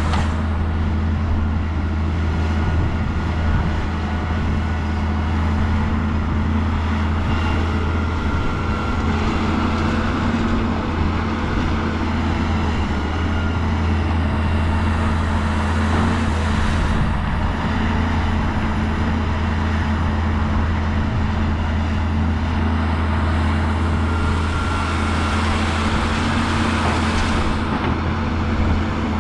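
Diesel engine of heavy earthmoving machinery running steadily, a deep even drone with no breaks.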